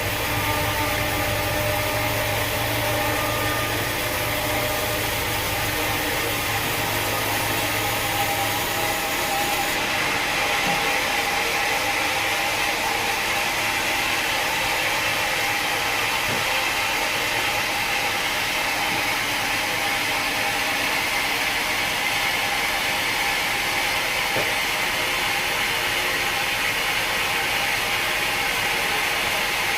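Sawmill machinery running steadily, a continuous mechanical noise. A low hum drops out about nine seconds in and the noise changes character, then carries on steadily.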